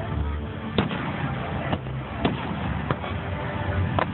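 Aerial fireworks shells bursting: four sharp bangs at uneven intervals over a steady background noise.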